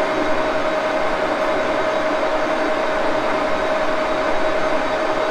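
1941 Axelson engine lathe running steadily: an even mechanical hum with one steady mid-pitched whine held throughout.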